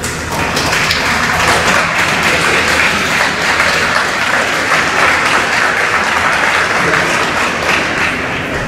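Audience applauding, a dense patter of hand claps that starts suddenly and eases a little near the end, greeting the end of a figure skating free program.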